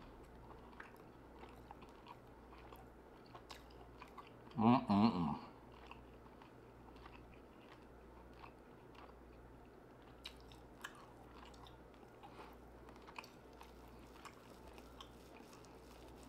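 Close-miked chewing of a bite of tomahawk ribeye steak: soft, faint mouth clicks and smacks throughout, with a short hummed vocal sound of enjoyment about five seconds in.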